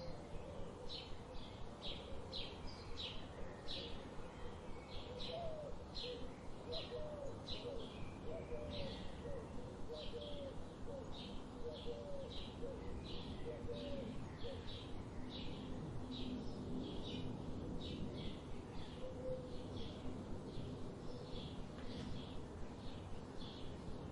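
Birds chirping: a steady series of short, high chirps about twice a second, with a run of lower warbling notes in the first half, over a faint background hiss.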